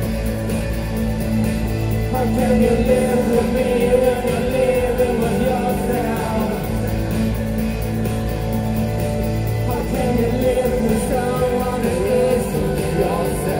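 Live rock band playing loudly, with electric guitar, keyboards and drums under a strong bass line, and a male lead vocal singing in two phrases, one starting about two seconds in and one near the end.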